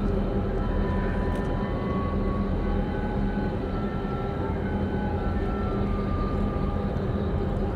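Steady low drone of a large container ship's engines and machinery as it passes close by, a deep rumble with a constant hum, mixed with wind and water noise.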